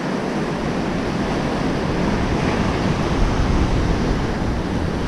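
Ocean surf washing up on the beach in a steady rush, with wind buffeting the microphone in a low rumble that gusts stronger in the middle.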